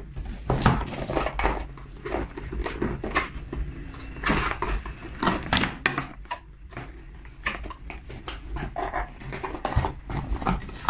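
Cardboard box and paper packaging being opened and handled by hand: irregular rustling, scraping and small knocks.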